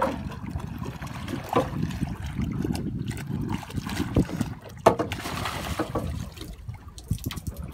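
A hooked jack splashing and thrashing at the surface against the boat's hull as it is hauled aboard, with a few sharp knocks and a louder splash about five seconds in. Wind rumbles on the microphone throughout.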